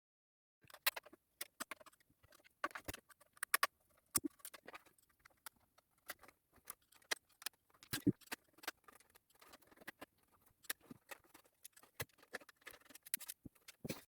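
Screwdriver backing screws out of a Humax set-top box's metal case: an irregular run of small clicks, ticks and scrapes of metal on metal, with a few sharper knocks.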